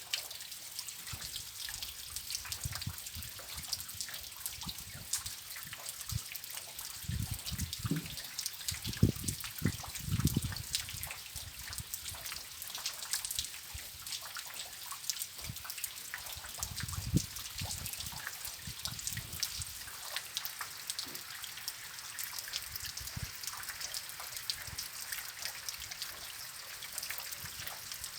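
Rain falling, with a steady patter and many fine drips and trickles of water. Several dull low thumps break through, a bunch about a third of the way in and another past the middle.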